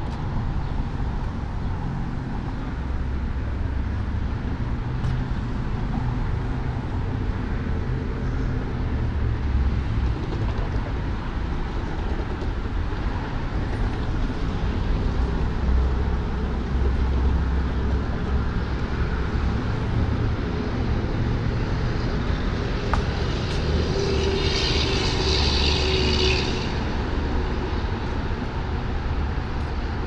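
Steady low rumble of outdoor city noise, like traffic, with a brief high-pitched sound lasting about two seconds a little over three quarters of the way through.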